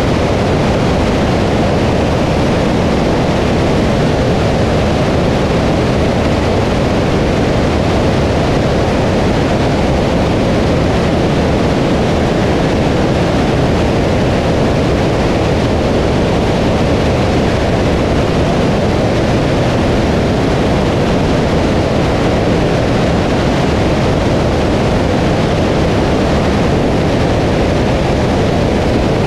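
Socata TB20 light aircraft in cruising flight: a steady, loud rush of wind and engine noise heard from outside the airframe, unchanging throughout.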